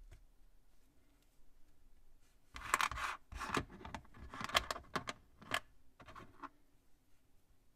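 Small plastic Plus-Plus pieces clicking and scraping against each other and the tabletop as they are handled and slid about. The clicks come in several quick clusters starting a couple of seconds in, with quiet before.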